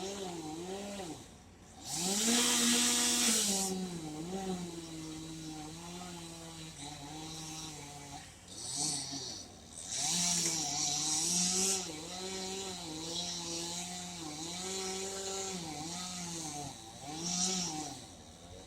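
Chainsaw running at high revs, its pitch dipping and recovering again and again as it loads. Louder bursts of harsh hiss come about two seconds in, around ten seconds in and near the end.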